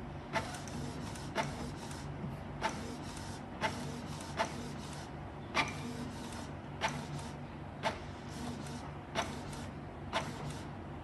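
Canon PIXMA G2010 inkjet printer running: a steady low motor hum with sharp mechanical clicks about once a second, and a sheet of paper feeding out near the end.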